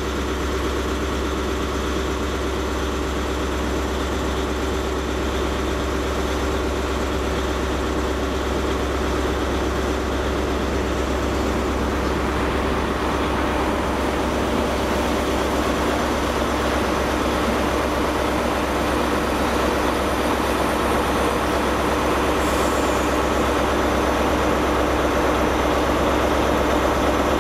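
CrossCountry Class 170 Turbostar diesel multiple unit's underfloor diesel engines running steadily as the train moves through the station, a continuous low hum. A brief faint high falling squeal about 22 seconds in.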